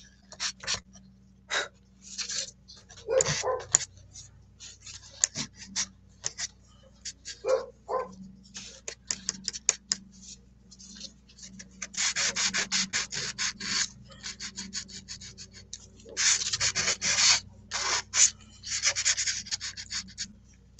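Soft pastel stick scratching across paper in short strokes, with runs of rapid back-and-forth strokes about midway and again near the end, over a faint steady hum.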